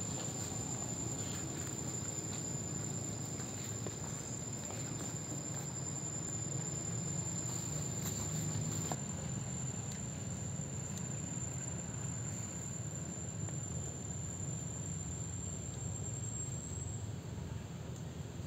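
A high, steady insect whine on one unwavering tone, rising slightly just before it stops near the end, over a low background rumble.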